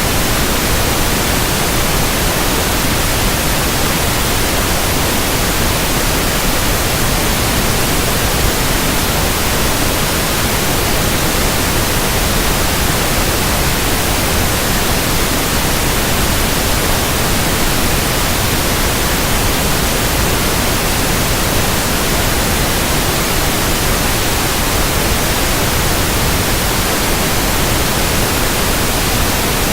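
Pink noise test signal for speaker testing: a steady, even hiss across the whole range that does not change.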